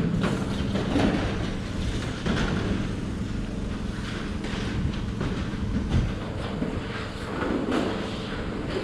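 Roofers working on a steel barn roof overhead: irregular knocks and clatter from the metal roofing panels over a steady low hum.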